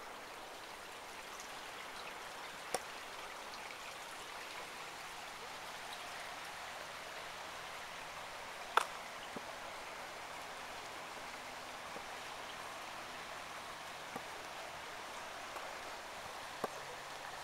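Steady hiss of rainwater running off after a cloudburst, with a few sharp ticks scattered through it, the loudest about nine seconds in.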